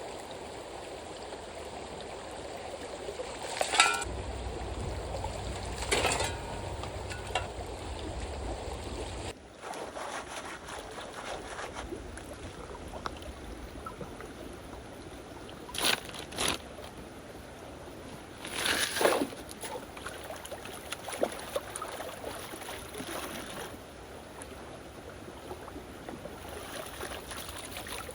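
Creek water running and sloshing while gravel is worked for gold, with a handful of sharp knocks or scrapes of stones and tools.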